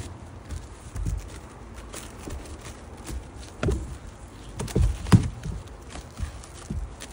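Plastic stretch film being pulled off the roll and pressed by hand onto a homemade kayak's frame: irregular soft thumps and crackles, with the sharpest knock about five seconds in.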